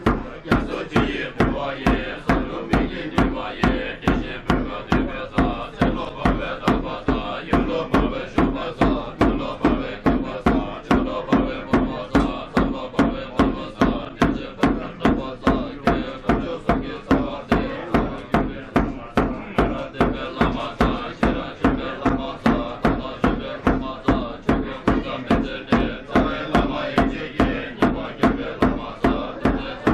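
Tibetan Buddhist monks chanting a ritual text together in low voices, kept to a drum struck steadily about twice a second.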